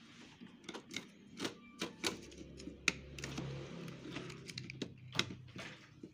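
Irregular clicks and taps of plastic parts as fingers handle the ink supply tubes and printhead carriage inside a Brother MFC-J3530DW inkjet printer.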